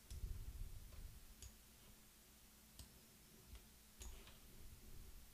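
Near silence with a few faint computer mouse clicks, about one every second and a half, over a low steady hum.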